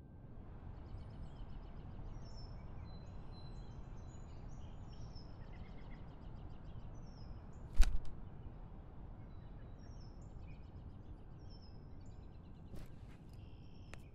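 Outdoor ambience: small birds chirping over a steady low background hum, with one sharp knock about eight seconds in and a few lighter clicks near the end.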